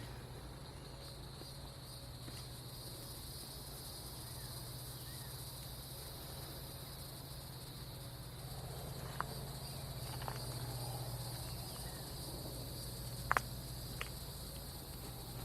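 Insects chirring steadily in a high, even drone, over a low steady hum. A few sharp clicks or knocks sound in the second half.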